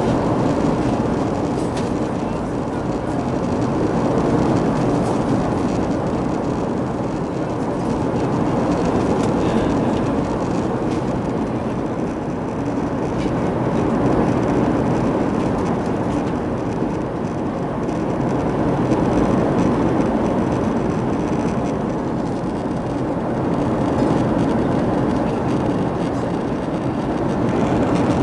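Steady roar of an Airbus A330's engines and rushing air, heard inside the passenger cabin in flight, swelling and easing slowly every few seconds.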